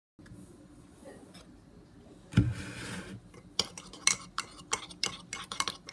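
A metal teaspoon stirring Milo and milk in a ceramic mug, clinking quickly and unevenly against the sides, starting about three and a half seconds in. Before it, a single loud thump.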